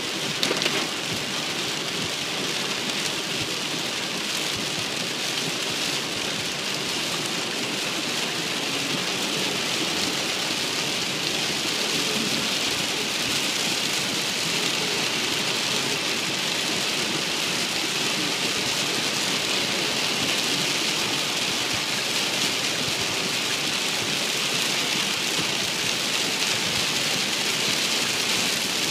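Heavy rain beating on a moving car's windshield and body, heard from inside the cabin as a steady hiss that builds slightly over time. A brief knock comes about half a second in.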